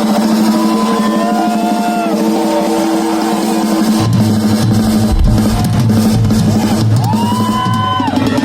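Live rock drum solo on a full drum kit, with bass drum, snare and rolls, over a steady held tone. A heavier low end joins about four seconds in.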